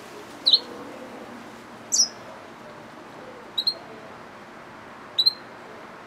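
Yellow-fronted canary mule (a hybrid finch) giving short, sharp chirps: four calls about one and a half seconds apart, several of them doubled.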